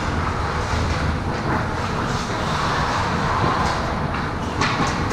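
Ice hockey play around the net: a steady rumbling rink din with skates scraping on the ice, and a few sharp clacks of sticks and puck about four and a half seconds in as players jam the crease.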